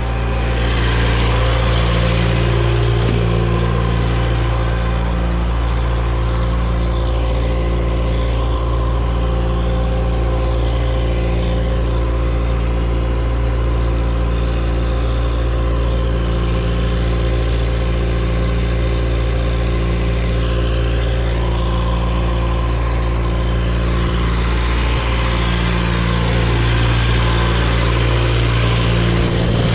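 John Deere stationary diesel engine running steadily as it drives an irrigation pump, a constant low hum with a slow, regular throb in it.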